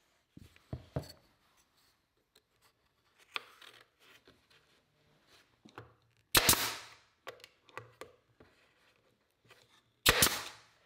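Nail gun firing 3/4-inch nails into poplar trim molding: two sharp shots, about six seconds in and again near the end, each trailing off over about half a second. Softer clicks and taps come in between.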